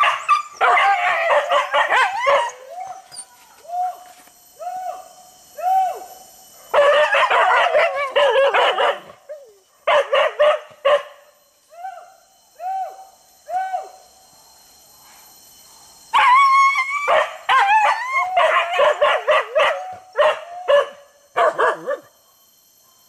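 Pack of hunting dogs barking and yelping in excited bursts while searching for wild boar, with single yelps about once a second in the lulls between bursts.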